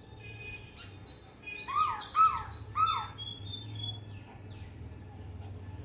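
Birds calling: three loud, quick, arched notes close together about two seconds in, among thin high whistled notes, from an Asian koel being mobbed by fantails.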